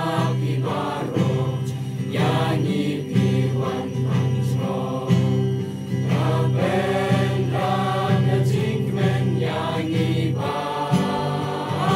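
A large group singing together in chorus, accompanied by a strummed acoustic guitar.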